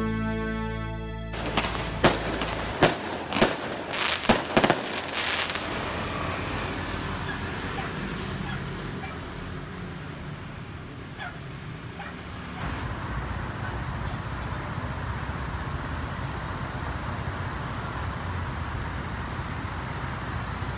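Electric guitar music cuts off about a second in. Outdoor noise follows: a quick string of five or six sharp bangs over about three seconds, then steady street ambience that grows a little louder about halfway through.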